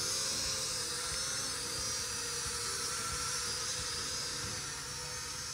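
Small toy quadcopter drone's four propellers whirring steadily, a high buzzing whine that wavers a little in pitch as it is steered.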